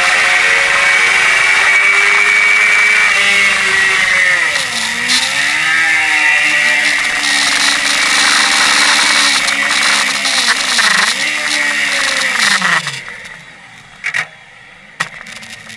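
Suzuki GSX-R inline-four engine heard from on board the moving bike, running hard with wind rush; its pitch dips and picks up again a few times as the throttle is eased and reopened. Near the end the revs fall away and the engine goes much quieter as the throttle is closed.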